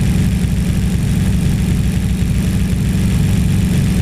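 Nissan RB26DETT twin-turbo straight-six idling steadily, warm and a few degrees short of the temperature where the electric radiator fan switches on.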